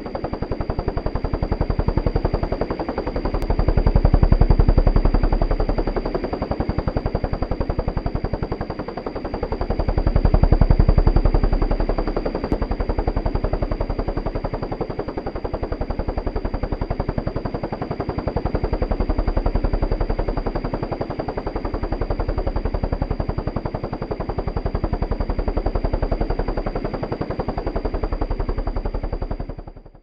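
Small two-bladed helicopter hovering: a rapid, steady chop from the main rotor with a thin steady high whine over it. It swells louder twice and dies away right at the end.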